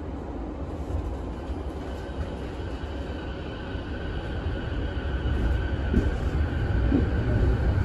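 Sotetsu 10000 series electric train heard from inside the car: a low rumble of wheels and bogies growing steadily louder, with a faint whine from its Mitsubishi IGBT VVVF inverter and traction motors.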